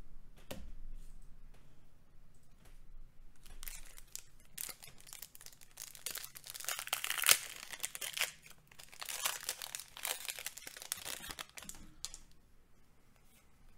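Foil wrapper of a Magic: The Gathering booster pack being torn open and crinkled: crackling starts about four seconds in, is loudest around seven seconds with one sharp tear, and dies away near the end.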